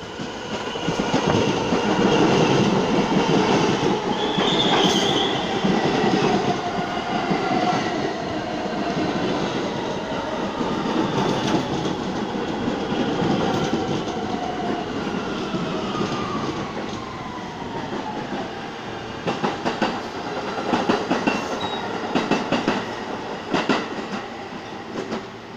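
A New York City Subway Q train of R160 cars pulls into the station and brakes to a stop. Its wheels clatter along the rails and the traction motors whine, falling in pitch as it slows, with a brief wheel squeal about five seconds in. A run of clicks and clanks comes near the end as it comes to a halt.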